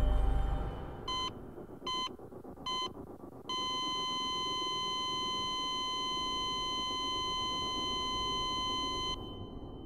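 Heart monitor beeping three times, about a second apart, then going into one continuous flatline tone for about six seconds that cuts off suddenly: the flatline signals the heart has stopped.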